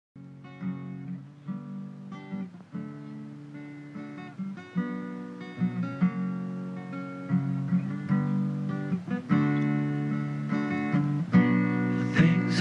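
Acoustic guitar playing chords, picked and strummed, starting out of silence and growing steadily louder.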